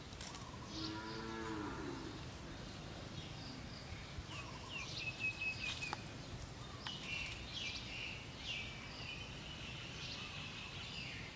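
Faint outdoor ambience of small birds chirping and whistling, with one low, drawn-out animal call about a second in.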